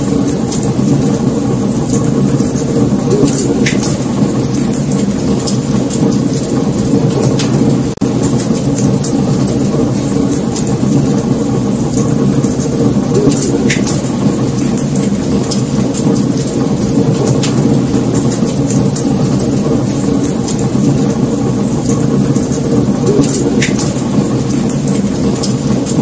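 Wood fire burning: a steady low rushing of the flames with frequent sharp crackles and pops from the burning logs.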